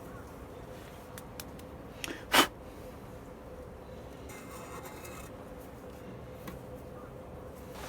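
Hands working on small parts: a few light clicks, one sharp knock about two seconds in, then a second or so of rubbing or scraping, over a steady faint hum.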